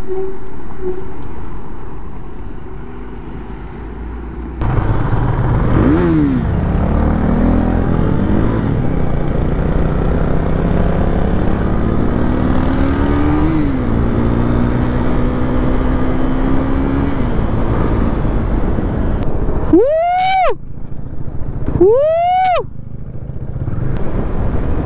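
Motorcycle engine on the move, pulling through the gears, its pitch climbing slowly and dropping back at each shift. Near the end come two quick throttle blips, each rising and falling in about half a second.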